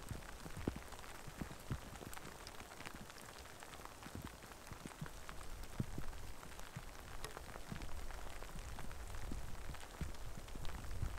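Steady rain falling, with many single drops ticking close by.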